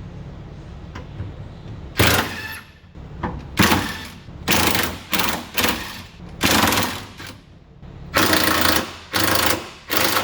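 Power impact wrench run in about nine short bursts, each half a second to a second long, starting about two seconds in, as it works bolts under the car.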